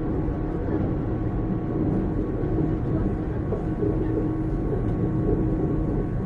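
Running sound from inside a JR 455 series express-type electric train at steady speed: a continuous rumble of wheels on rail, with the steady hum of its DC traction motors and gears holding one pitch.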